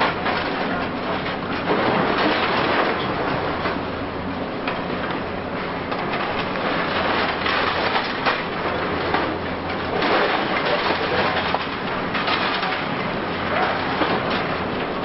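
High-reach demolition excavator (Hitachi Zaxis 870) breaking up a building: concrete crunching and debris clattering in repeated surges over the steady low hum of the machine's engine.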